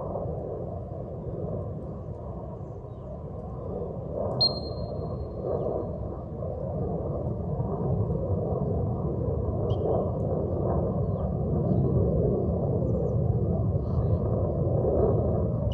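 Steady wind rumbling on the microphone. About four seconds in, a single short, shrill whistle blast: a dog-training whistle, in this sit-and-cast drill the signal for the retriever to stop and sit. Fainter short high chirps follow later.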